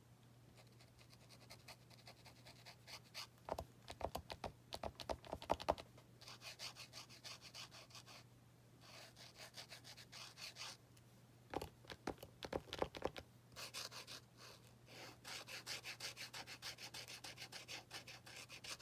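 Posca paint marker tip scratching and rubbing over a painting board in quick short strokes, with busier bursts a few seconds in and again about two-thirds of the way through.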